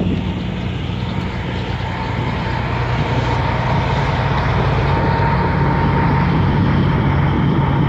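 Steady engine drone, slowly growing louder, with a thin high whine joining it about two seconds in.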